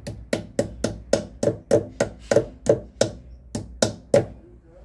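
A hammer tapping a key into place on a washing machine's shaft assembly: about a dozen quick, sharp taps at roughly three a second, each with a short ring, stopping near the end.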